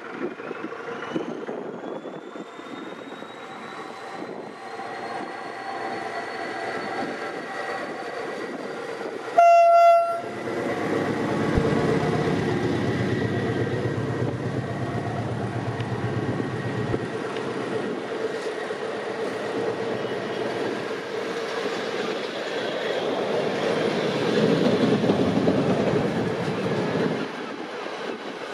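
SM42 diesel shunting locomotive pulling away under power with a passenger train, its engine running with a whine that rises in pitch over the first few seconds. About ten seconds in it gives one short horn blast, the loudest sound. After that the double-deck coaches roll past with a steady rumble and wheels clicking over the rail joints.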